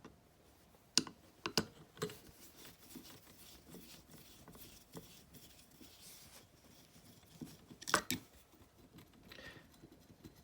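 Small screwdriver undoing the retaining screw on a boiling water tap's control handle: faint scraping and ticking of metal on metal, with a few sharp clicks about a second in and another near eight seconds.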